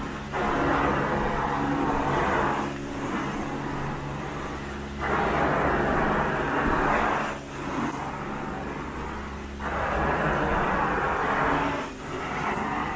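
Carpet-cleaning extraction wand drawn across carpet in strokes: the suction rush swells three times, for about two seconds each, over a steady machine hum.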